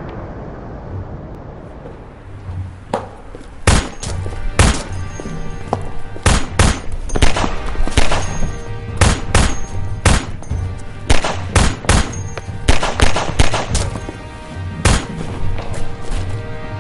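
Dramatic film-score music with a long, irregular series of loud, sharp bangs starting about three seconds in, sounding like gunfire in an action scene.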